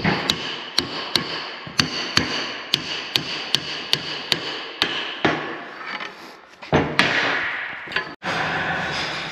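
Hammer blows on steel, about a dozen sharp ringing strikes at roughly two a second, knocking a stuck threaded part out of a dozer blade. Near the end the strikes give way to a longer, louder noisy stretch.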